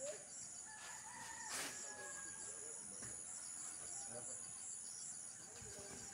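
Steady high-pitched insect chirring with an even pulse, with a faint rooster crowing in the distance about a second in.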